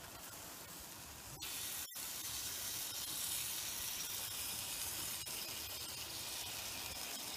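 Prime rib steak sizzling on a hot barbecue grill as it is basted, a steady hiss that grows louder about a second and a half in.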